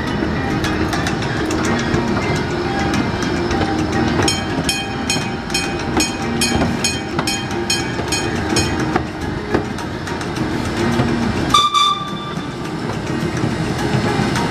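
Miniature park train running steadily along its track. A bell rings about twice a second for about five seconds, and a short horn toot sounds near the end.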